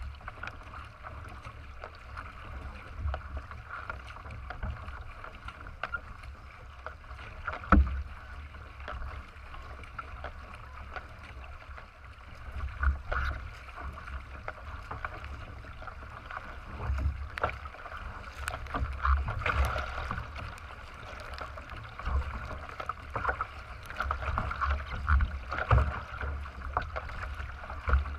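Water rushing and splashing along the hull of a racing kayak as it is paddled at race pace, with uneven low rumbling surges. A sharp knock about eight seconds in is the loudest moment.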